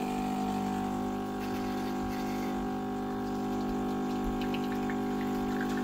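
Saeco Xsmall automatic espresso machine brewing: its water pump hums steadily as coffee runs from the spout into a glass cup.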